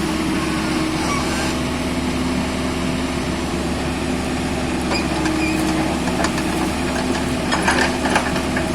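Excavator's diesel engine running steadily under load, with a steady droning hum, and a short burst of clattering knocks near the end.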